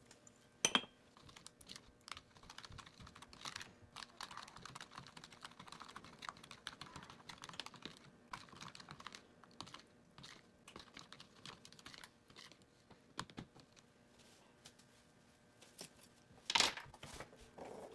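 Metal spoon stirring a thin liquid marinade in a plastic bowl: a run of quick small clicks and scrapes of the spoon against the bowl, with a sharp knock just under a second in and another near the end.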